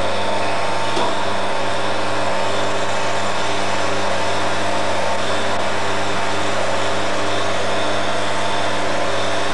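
Motor-driven polishing lathe running steadily while a wet copper-and-enamel vase is ground on its spinning spindle: an even motor hum under a constant grinding hiss.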